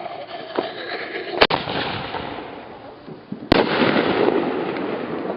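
Consumer aerial fireworks bursting: two sharp bangs about two seconds apart, each followed by a long crackling fizz that slowly fades.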